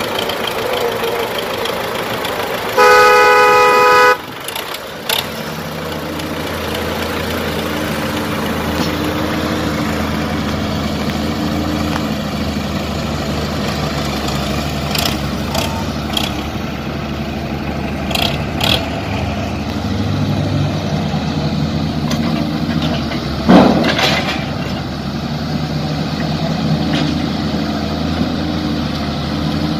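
Diesel engines of a tractor and excavators running steadily. A loud horn blares for about a second, about three seconds in, and there are a few sharp metal clanks and, about two-thirds of the way through, one loud bang.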